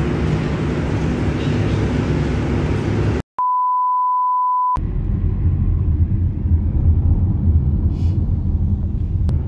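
A low rumbling noise, then a single steady high-pitched test-tone beep lasting about a second and a half: the tone that goes with TV colour bars. After it comes the low rumble of road noise heard from inside a moving car.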